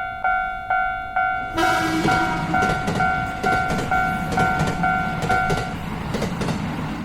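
Japanese railroad crossing warning bell ringing 'kan kan' about twice a second. About one and a half seconds in, a train passes through the crossing, a rushing rumble with clicks of wheels over rail joints that runs on after the bell stops near the end.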